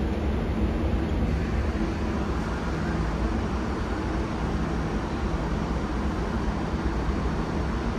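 An R188 subway train on the 7 line running: a steady rumble and hiss with a low hum underneath, unchanging throughout.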